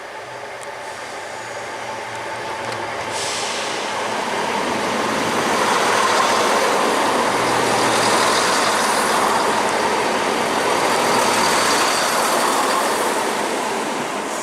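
ScotRail Class 170/3 Turbostar diesel multiple unit arriving into the platform, its engine and wheel noise building up as it comes past, staying loud through the middle and then easing slightly.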